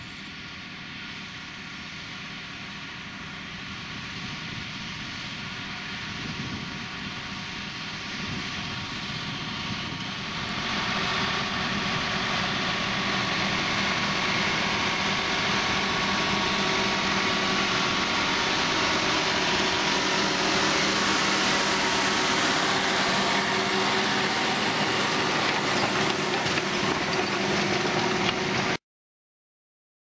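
John Deere tractor engine working under load while pulling a reversible plough through stubble, growing steadily louder as the tractor draws closer and stepping up again about ten seconds in. The sound cuts off suddenly near the end.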